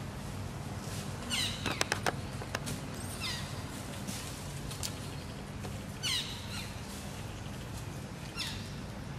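Short, high-pitched animal calls, each sweeping downward in pitch, repeated four times a couple of seconds apart. A quick run of sharp clicks comes about two seconds in, over a faint steady low hum.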